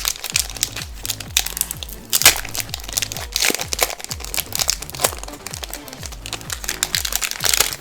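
Foil Pokémon booster pack wrapper crinkling as it is handled and opened, over background music.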